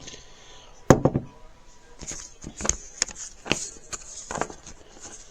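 A series of sharp taps and knocks: a loud one about a second in, then several lighter ones at irregular intervals.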